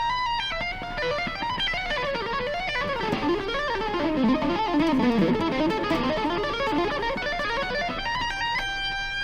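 Electric guitar played with a fast two-hand tapping lick: a rapid, chaotic run of notes built on symmetrical minor-third shapes, winding up and down, ending on a held note near the end.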